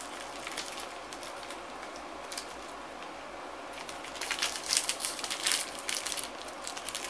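Plastic wrapper of a meat snack stick crinkling and tearing as it is opened. A few scattered crackles come first, then a dense burst of crinkling about four seconds in.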